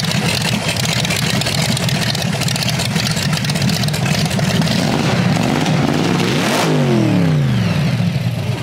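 Hot-rod V8 engine running loud with a fast, pulsing exhaust rumble. Its pitch slides down over the last two seconds.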